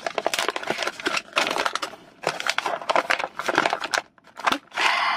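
Crinkling and rustling of a paper tool-kit pouch being unrolled and opened by hand, a run of irregular crackles with a short pause about four seconds in.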